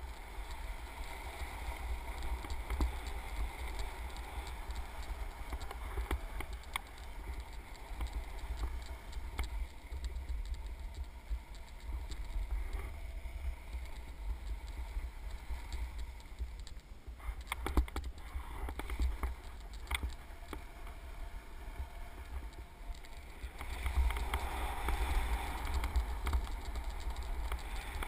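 Wind buffeting the camera's microphone as a low, uneven rumble, with a few small knocks and clicks and a louder gusty stretch near the end.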